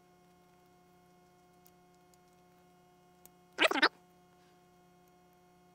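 Faint steady electrical hum with a few faint ticks. About three and a half seconds in comes one brief, loud, pitched sound.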